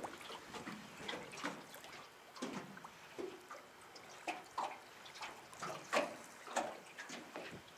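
Small waves lapping and slapping against the side of a boat hull, in irregular splashes about every half second.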